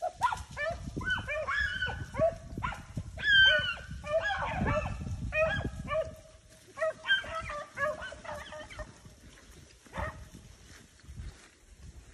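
A pack of beagles baying as they run a rabbit's trail through thick cover: many short, overlapping bawls from several dogs, dense at first and thinning to a few scattered calls after about nine seconds.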